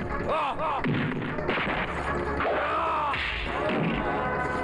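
Film fight soundtrack: repeated punch and thud impact sound effects over dramatic background music.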